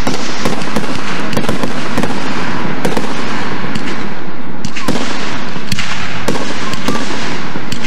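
Aerial fireworks shells bursting overhead in quick succession: a rapid run of sharp bangs over continuous crackling.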